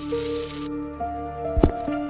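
Background music of long held notes. A hiss under it cuts off suddenly under a second in, and a beat of deep low thumps starts near the end.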